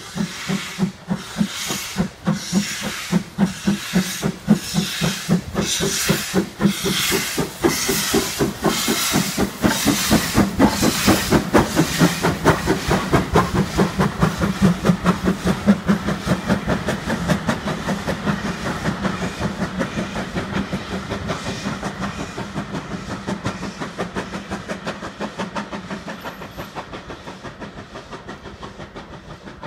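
Ivatt Class 2 2-6-2 tank locomotive No. 41298 pulling away with a train of carriages. Its exhaust chuffs start as a slow beat and quicken to a rapid one as it gathers speed. The chuffs are loudest as it passes and fade as it draws away.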